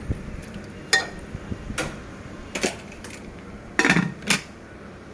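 A handful of sharp metallic clinks and clanks from a pressure cooker and its lid being handled and closed, the loudest pair close together near the end.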